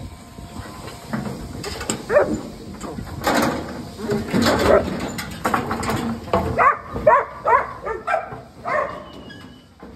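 A working sheepdog barking, a quick run of short barks near the end, while sheep knock and clatter against the steel panels of a race.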